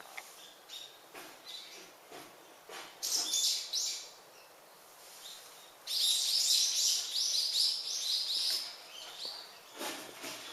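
Small birds chirping: a short run of high notes, then a louder quick series of about four chirps a second lasting a few seconds, over faint scattered rustles and knocks.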